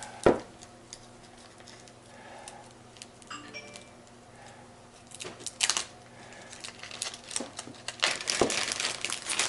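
A new gearbox bearing's packaging being unwrapped by hand: crinkling and tearing of the wrapping, with a sharp click just after the start and the rustling growing dense and busy in the second half.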